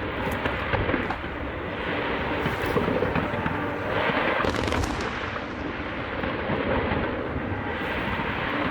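Fireworks going off in a dense, rapid barrage: a continuous run of bangs and crackling with no gaps, a few sharper bursts standing out partway through.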